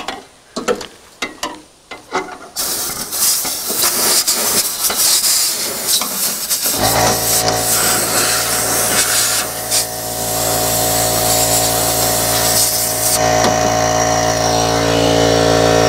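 A few knocks, then compressed air from an air-hose extension hissing as it blows debris out of the tractor's radiator and intercooler screens. About seven seconds in, a motor starts and runs with a steady hum under the hiss.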